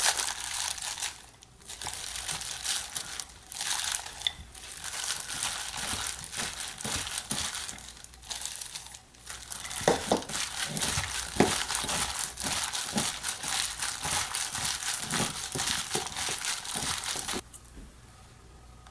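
Crinkly packaging being handled and crumpled continuously, with a few soft knocks partway through; it stops suddenly near the end.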